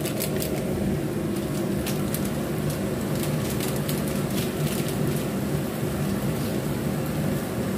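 Spicy coconut-milk sauce with tofu and fish sizzling in a frying pan on a gas burner, with scattered crackles in the first few seconds over a steady low hum.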